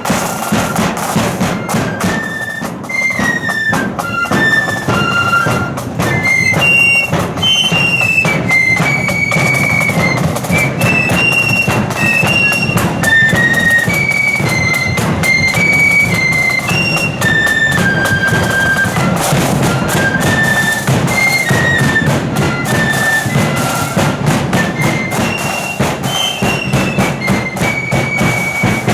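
Marching flute band playing a march: flutes carry a single melody line over a steady beat of side drums and bass drum.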